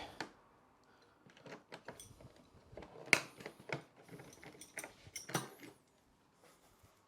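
Scattered clicks, knocks and metal clinks of hand tools working on the motorcycle's fasteners, the sharpest knock about three seconds in.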